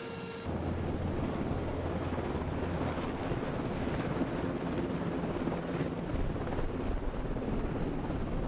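Helicopter rotor and engine noise, a steady low drone under a heavy rush of wind on the microphone. It starts with a cut about half a second in.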